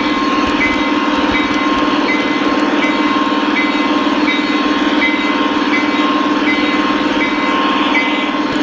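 Three-rail model train running along its track, heard from on board: a steady mechanical hum of motor and wheels rolling on the rails, with a short high double beep repeating about every half second.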